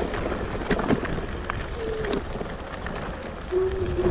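Kugoo G2 Pro electric scooter ridden over rough ground: scattered knocks and rattles over a steady tyre and wind noise, with two short whines about two seconds in and near the end.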